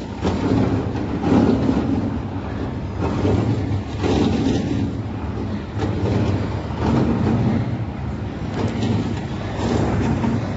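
A steady low mechanical rumble with irregular knocks and bumps every second or two.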